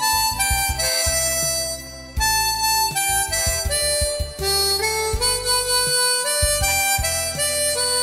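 Harmonica playing a Korean trot-song melody in held, stepping notes over a backing track with bass and drums.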